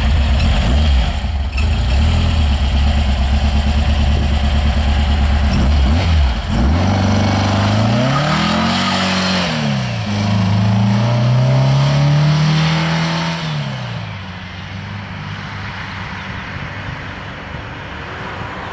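Intermeccanica roadster's 2110cc air-cooled flat-four engine through its A-1 sidewinder exhaust, running at a steady low note, then accelerating away: the pitch rises, drops, rises again and fades as the car pulls off into the distance.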